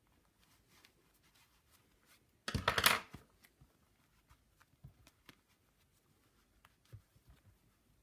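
Hands handling fabric and tools: faint taps and ticks, with one short loud rustle about two and a half seconds in.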